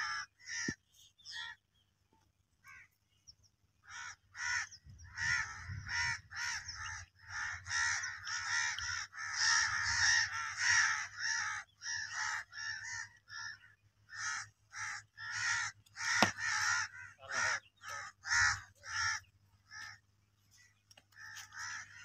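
Crows cawing over and over, short harsh calls that crowd together and overlap in the middle, with a single sharp crack about sixteen seconds in.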